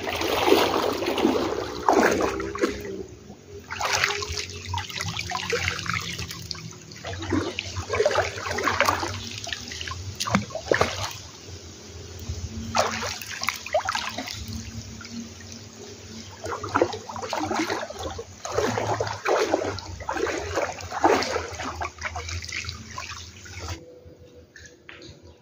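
Splashing and sloshing of legs wading through knee-deep flood water, in irregular bursts every second or so.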